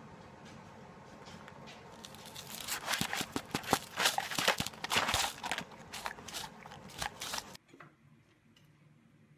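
A dog's snout working at a paper plate right beside the microphone, making a run of loud crinkling, crunching clicks for about five seconds that cuts off suddenly.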